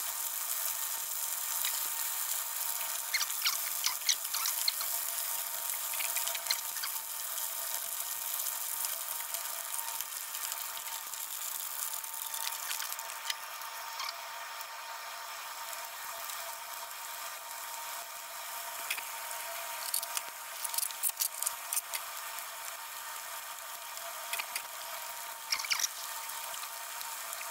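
Karaage pieces deep-frying in hot oil in a pan: a steady sizzle with scattered sharp clicks and pops, bunched a few times.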